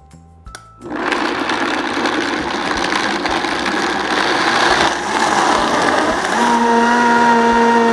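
High-powered countertop blender starting up about a second in and blending soaked almonds, cashews and dates with water into almond milk. It gets louder after about five seconds as it is turned up, and a steady motor whine comes in near the end.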